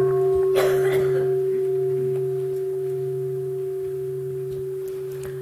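A Buddhist bowl bell (a mindfulness bell) is struck once. Its clear tone rings on and slowly fades.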